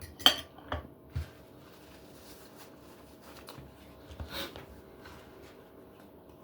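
Eating at the table: a few short, sharp clicks and taps in the first second or so, the loudest about a quarter second in, and a softer, noisier one a little after four seconds.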